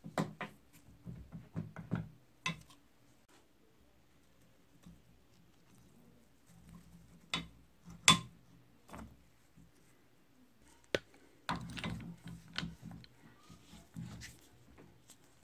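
Scattered metal clinks and knocks from handling the rusty crank handle of an antique meat grinder held in a vise and fitting a gear puller onto it. The sounds come in clusters, with one sharp knock standing out about eight seconds in.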